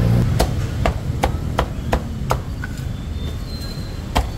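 Meat cleaver chopping roast duck on a thick wooden chopping block. A run of sharp chops comes about three a second, then a pause, then one more chop near the end.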